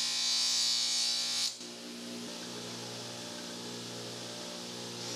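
Bench grinder running while a long knife blade is ground against its wheel: a loud hiss of steel on the stone over the motor's steady hum. The hiss stops sharply about a second and a half in, leaving the hum, and grinding starts again faintly near the end.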